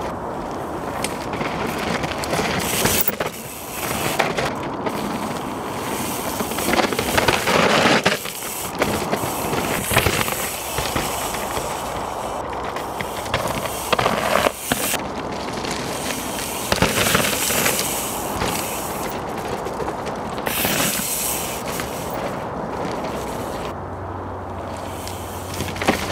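Mountain bike on all-mountain carbon wheels riding a rough dirt trail: knobbly tyres rolling and skidding over dirt and stones, with rattling from the bike and swells of noise every few seconds as it passes.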